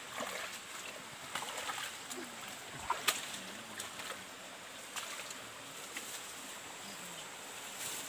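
Footsteps wading and sloshing through a shallow, muddy stream over a steady rush of running water. A few sharp knocks of feet on stones and debris come through, the loudest about three seconds in.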